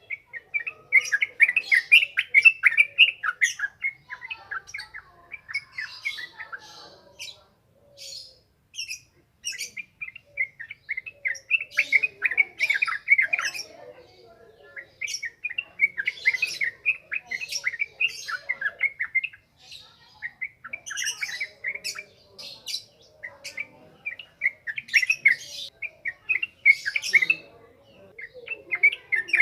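Sooty-headed bulbul (trucukan) singing in long runs of rapid chattering notes, the continuous 'ngropel' style, each run lasting a few seconds with short pauses between.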